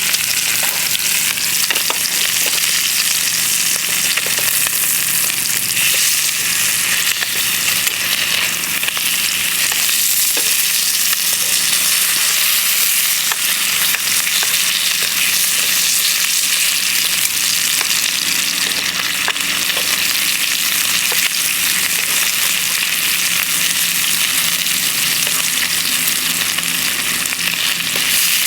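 Bacon and eggs sizzling steadily in a campfire frying pan, with a dense, continuous hiss.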